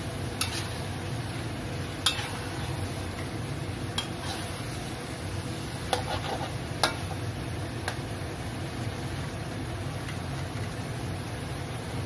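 A spatula knocks and scrapes against a wok as prawns, chillies and onions are stir-fried, over a steady frying sizzle. There are about seven sharp clinks in the first eight seconds; after that only the sizzle continues.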